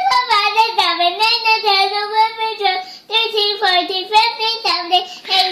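A toddler singing in a high sing-song voice, holding and sliding between long notes, with a short break about three seconds in.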